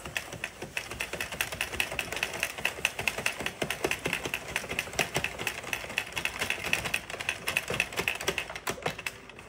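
48-pin plastic circular knitting machine being cranked for casting off, its needles clicking in a fast, even stream of small plastic clicks that ends just before the next speech.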